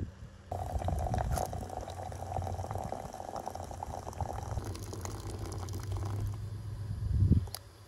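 Water running from a samovar's tap into a glass teapot, splashing onto the flower petals inside as the pot fills. A low thump sounds just before the end.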